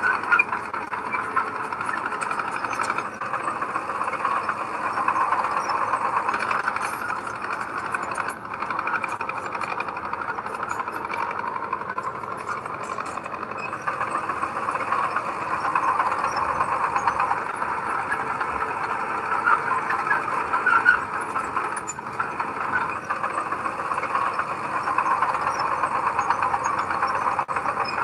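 Diesel engine of heavy earthmoving machinery running steadily under load, a continuous working noise that swells and eases a little.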